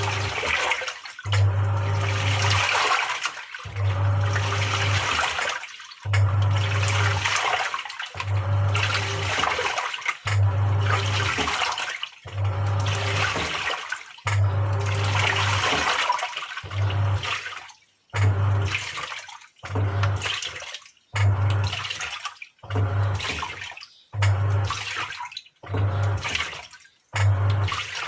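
Samsung 6.5 kg top-loading washing machine agitating its load: the motor hums in regular pulses as the pulsator turns, with water sloshing in the tub at each stroke. From about halfway through, the strokes become shorter and quicker.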